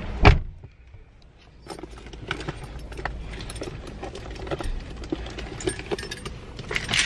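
A car door shuts with a thump, and the background noise drops after it. Then keys jangle, with scattered clicks and small rattles.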